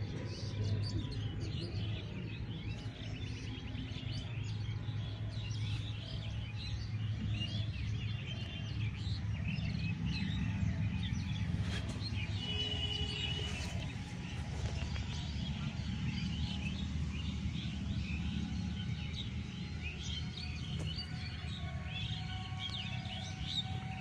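Many small birds chirping and calling over one another in a dense chorus, over a steady low drone.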